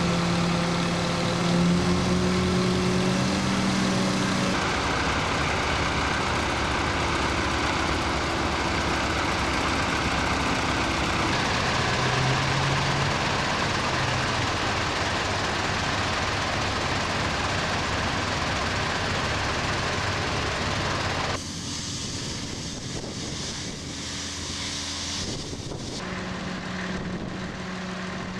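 Heavy vehicle engines running steadily, from a mobile crane lifting a motor yacht and a boat transporter in the yard. The sound changes abruptly about four seconds in and again about 21 and 26 seconds in, and is quieter after the second change.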